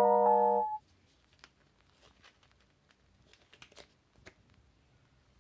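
Background music chords stop abruptly under a second in. Then faint rustling and crinkling of paper sheets as pages of printed study notes are handled and turned, with a few soft clicks scattered through the rest.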